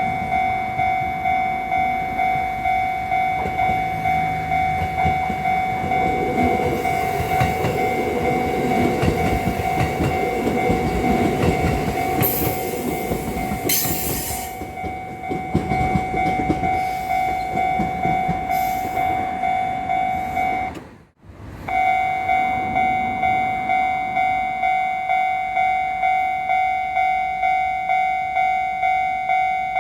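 Japanese level-crossing warning bell ringing steadily at about two strokes a second. Partway through, an electric train passes over the crossing with a rumble and wheel clatter. The bell cuts out abruptly for a moment about two-thirds through, then carries on.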